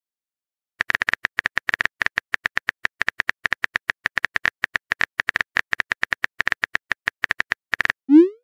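Phone-keyboard typing sound effect: a rapid run of short, evenly spaced clicks, one per letter as a text message is typed out, starting about a second in and stopping just before the end.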